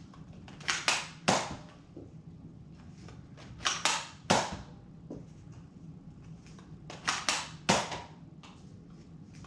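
Spring-powered Nerf Fortnite Deagle blaster being primed and fired three times, each a quick cluster of sharp plastic clacks and a pop, about three seconds apart.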